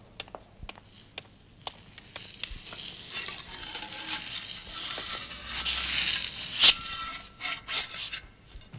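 Sparse, sharp footstep-like clicks on a hard floor. Then a hissing noise builds and grows loud, with one sharp crack near its peak about two-thirds of the way in, followed by several short noisy bursts.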